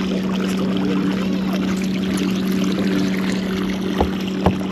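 Steady motor hum aboard a fishing boat, with water noise under it, and two sharp knocks about four seconds in.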